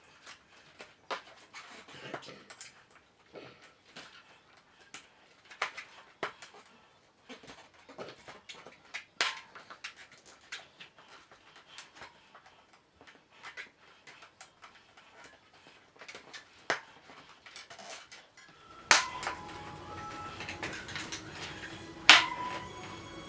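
Scattered clicks and knocks of hands working a tubeless road tyre onto a carbon bicycle rim. About 19 s in there is a loud knock, after which a steady hum sets in, and a second loud knock comes near the end.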